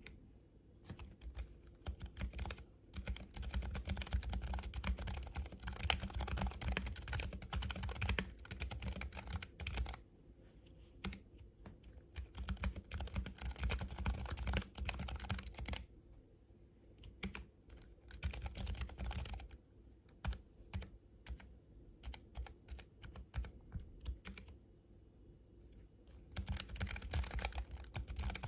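Typing on a Keychron K7 low-profile mechanical keyboard with Banana switches: quick runs of key clicks, broken by pauses and a stretch of single scattered keypresses.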